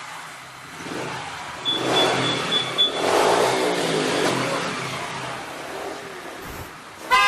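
Small motorcycle engines revving and pulling away amid street traffic, the pitch rising and falling as they accelerate. A horn begins to sound right at the end.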